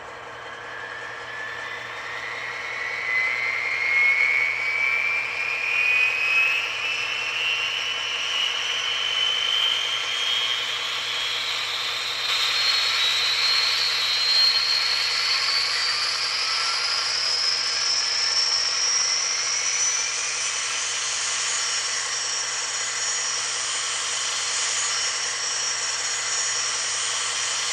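Sound decoder in an HO scale model gas turbine locomotive playing the turbine start-up through the model's small speakers: a whine that climbs steadily in pitch for about twenty seconds, then holds high and steady, extremely loud.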